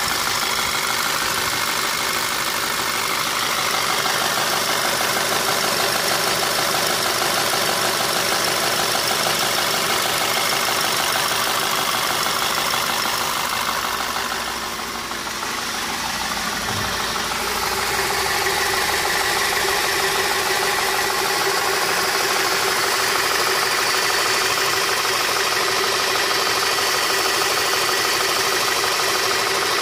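Volkswagen Tiguan's 2.0-litre turbocharged four-cylinder petrol engine idling steadily, heard close up. The tone shifts about halfway through, after a brief dip in level.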